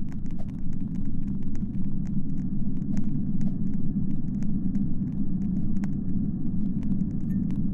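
Steady low rumble with scattered faint clicks.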